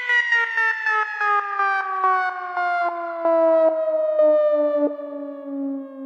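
A siren-like tone winding down slowly in pitch, one continuous falling note broken into a rapid stutter.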